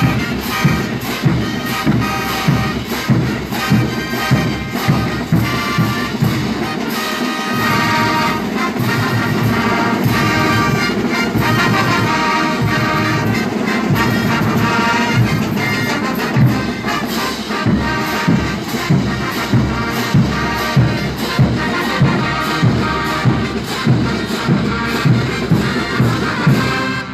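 Brass band (banda) music: brass over a steady low drum beat. The beat drops out for a few seconds about seven seconds in, then returns, and the music stops suddenly at the end.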